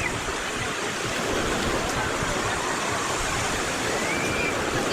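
Azov Sea surf washing steadily onto the beach, an even rushing wash with no breaks. A faint, short high call rises and falls about four seconds in.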